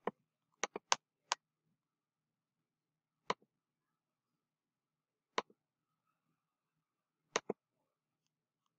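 Computer mouse button clicks: a quick run of clicks in the first second and a half, then a single or double click about every two seconds, with silence between.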